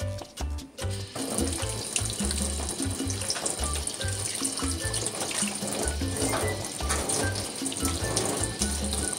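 Kitchen tap running into a stainless steel sink, starting about a second in, as a catfish is rinsed under the stream to wash off the flour and slime. Background music with a bass line plays throughout.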